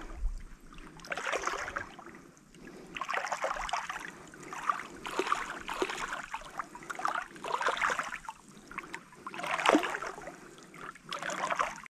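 Water splashing and sloshing against a small boat, in repeated bursts about every two seconds.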